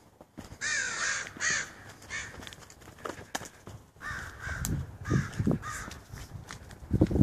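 A crow cawing: two harsh caws about a second in, then three more in quick succession around the fifth second.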